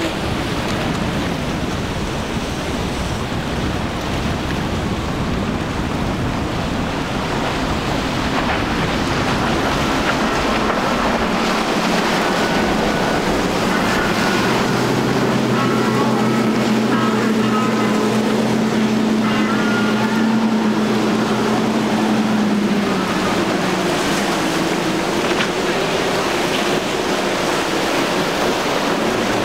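Outboard-powered center-console boats running at speed: a steady engine drone over the rush of hull spray and churning water, with wind on the microphone. The engine hum stands out most clearly through the middle stretch.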